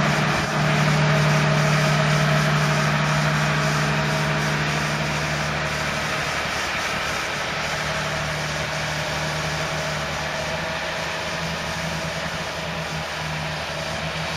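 Large John Deere tractor's diesel engine running steadily under load while it pushes and compacts chopped green rye on a silage clamp. The drone shifts slightly in pitch and eases a little about two-thirds of the way through.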